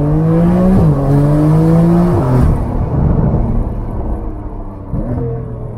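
Porsche 992 flat-six with an IPE straight-flow full exhaust and stage 2 remap, accelerating hard. The engine note climbs, drops at a quick upshift about a second in, climbs again and drops at a second upshift around two seconds in. It then turns rougher and noisier, with another brief break in pitch near the end.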